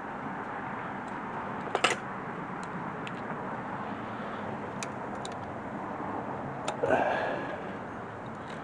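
Hand tools working on a car's underside: a sharp metallic clink about two seconds in and a few light ticks over a steady background hum, with a brief louder sound about seven seconds in.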